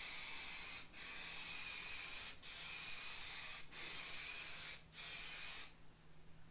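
Aerosol spray-paint can hissing as a coat of paint goes onto a steel oil pan. It sprays in several passes of one to one and a half seconds each, with brief breaks between them, and stops near the end.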